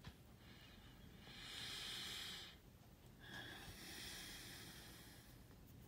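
Faint breathing close to the microphone: two slow, soft breaths, each about two seconds long.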